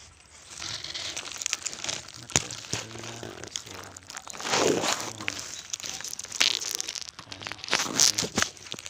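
Leaves and dry vegetation rustling and crackling close against a phone's microphone, with irregular sharp clicks and a louder swell about halfway through.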